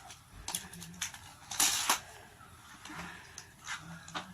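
Scattered plastic clicks and knocks from a Hot Wheels City track set as its lever is worked and die-cast toy cars are let go, with a louder rattle a little under two seconds in.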